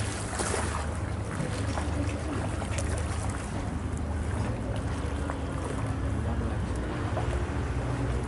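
Boat engine running with a steady low drone, under a constant hiss of wind and water.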